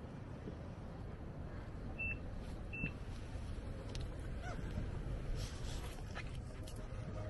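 Two short high electronic beeps about a second apart from a Prodim Proliner digital templating device, the sound it gives as a measured point is recorded. A low rumble of background noise runs underneath.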